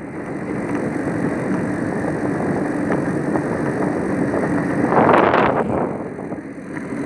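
Wind rushing over a handheld phone's microphone while cycling along a path, with a louder gust about five seconds in.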